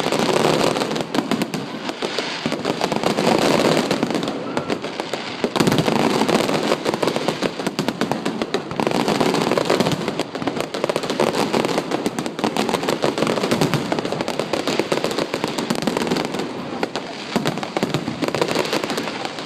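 Aerial fireworks going off in a dense, rapid barrage of bangs and crackling, easing briefly about four to five seconds in before building again.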